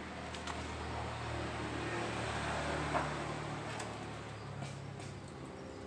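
A steady low mechanical hum, with a few held low tones that shift slightly partway through.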